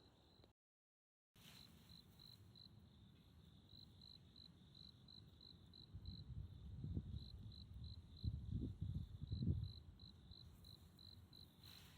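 A cricket chirping steadily: short, high-pitched pulses repeated a few times a second. Low rumbling bursts come in the middle and are the loudest thing heard.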